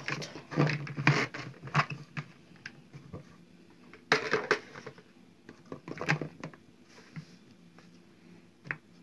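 Green peppers being packed by hand into a large plastic pickling jar: irregular rustling, scraping and soft knocks as peppers are pushed down and the plastic bowl and jar are handled. The loudest bursts come about a second in and around four seconds in.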